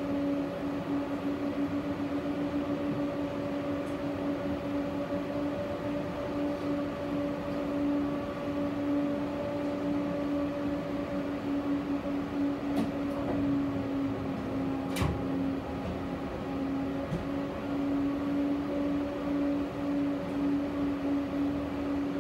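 Interior of a tram: a steady electrical hum of unchanging pitch over the car's running noise, with a few sharp clicks a little over halfway through.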